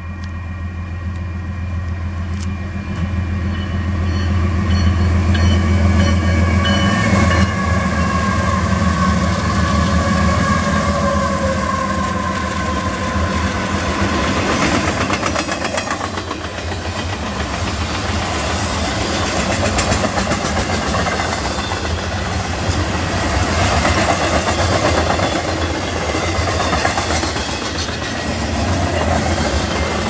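Four GE diesel-electric locomotives, an ET44AC leading three ES44ACs, approach and pass with a deep engine drone and a whine that slowly falls in pitch. From about halfway through, double-stack intermodal well cars roll by, their wheels clattering over the rail joints.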